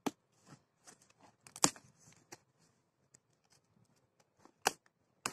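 Sealed cardboard box being pulled open: packing tape tearing and cardboard flaps scraping and rustling. Three sharp rips, one right at the start, the loudest about a second and a half in, and another near the end.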